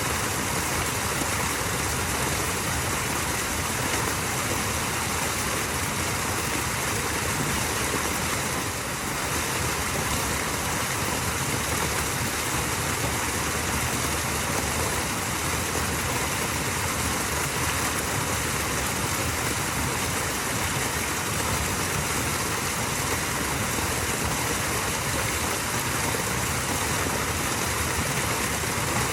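Small waterfall: water running and splashing in a steady, unbroken rush.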